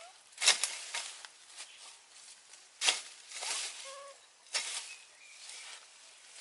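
A hoe chopping into weeds and soil: three sharp strikes about two seconds apart, each followed by a brief rustle of cut leaves and stems.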